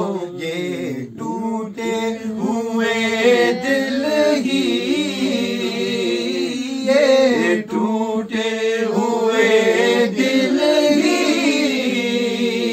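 A man singing a naat unaccompanied in long, drawn-out melodic lines over a steady low drone.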